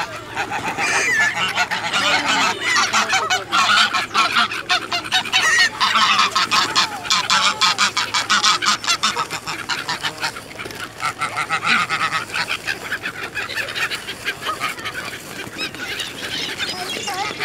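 Greylag geese honking close by, with the wings of a crowd of feral pigeons flapping as the flock jostles over food.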